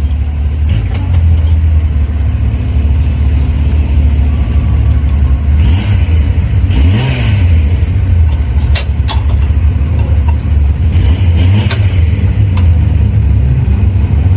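Vehicle engine running with a steady deep drone. Its pitch rises and falls once about seven seconds in, and a few sharp clicks come soon after.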